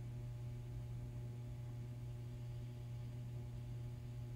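A steady low hum with a few faint higher tones over light hiss, unchanging throughout.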